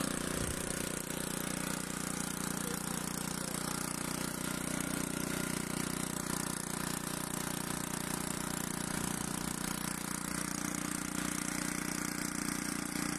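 Small scooter engine idling steadily, running on homemade petrol made from waste plastic bottles.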